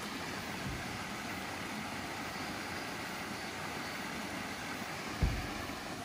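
Water flowing steadily along a stone-lined channel and spilling over its small weirs. A brief low thump about five seconds in.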